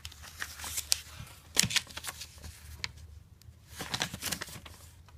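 Paper catalog pages being handled and turned: scattered rustles and light paper clicks.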